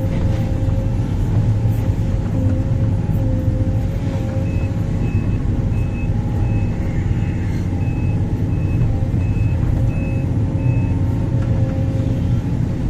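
Large excavator's diesel engine running steadily, with a steady hum over its low rumble. A back-up alarm beeps about ten times at an even pace, starting about four seconds in.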